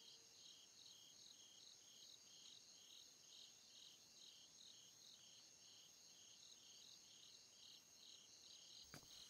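Faint crickets chirping: a continuous high trill with an even pulsing chirp beneath it, about two to three pulses a second. A ringing tone fades out just after the start, and a short click sounds near the end.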